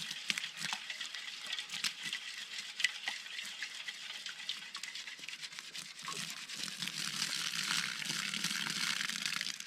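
Gold pan being worked in river water: water sloshing with gravel and clay rattling and crackling in the pan, swelling louder about six seconds in.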